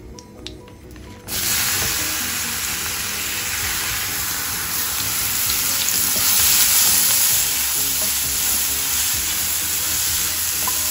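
Chopped ridge gourd frying in hot oil in an iron kadai, a loud steady sizzle that starts abruptly about a second in, while it is stirred with a wooden spatula.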